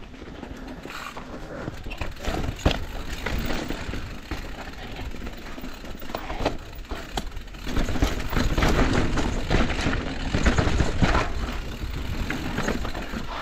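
Mountain bike rolling fast down a dry dirt trail: tyres crunching over dirt and rock, with sharp knocks and rattles from bumps and a low rumble that grows louder about eight seconds in.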